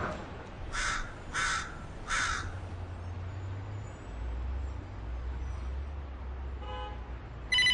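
A crow cawing three times, about two-thirds of a second apart. A telephone starts ringing right at the end.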